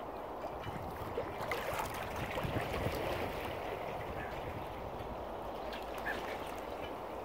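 Steady sound of open water lapping and moving close to the microphone, a little busier for a couple of seconds about a second in, with a couple of faint short water-bird calls.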